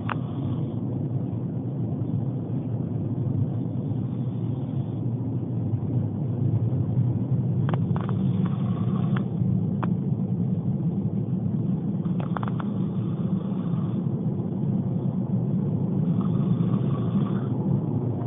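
Snoring: a low, rumbling snore that grows louder every few seconds, with a few faint clicks in between.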